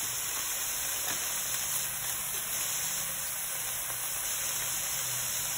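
Onions, carrots, celery and shredded chicken sizzling steadily in olive oil in a large pot over medium heat.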